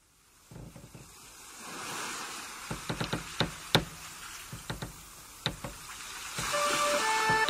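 Surf washing on a sandy shore, swelling and easing, with a scatter of sharp clicks and knocks through it. Near the end, music with long held notes comes in over the surf.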